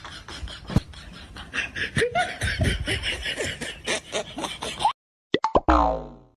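Comedy sound-effect laughter, snickering and chuckling over a steady background, that cuts off suddenly about five seconds in. After a gap of dead silence come two short sound-effect blips and then a cartoon sound effect sliding down in pitch.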